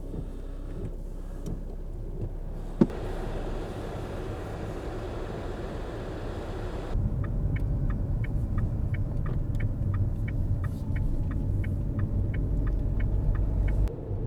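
Car running, heard from inside, with one sharp click a little under three seconds in. About seven seconds in the engine rumble gets suddenly louder, and a turn-signal indicator starts ticking evenly, about three ticks a second.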